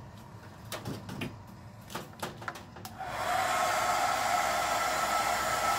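Hand-held hair dryer switched on about three seconds in, blowing steadily with a faint hum, to dry the freshly airbrushed paint on a fishing lure. Before it, a few short clicks.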